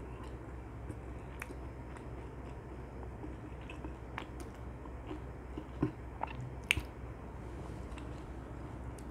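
Close-miked chewing of glazed Korean fried chicken (dakgangjeong), with a few sharp sticky or crunchy clicks, the loudest about two-thirds of the way through.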